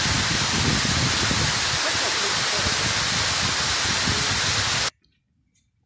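Waterfall rushing in a loud, steady, even noise that cuts off abruptly about five seconds in, leaving near silence with a few faint clicks.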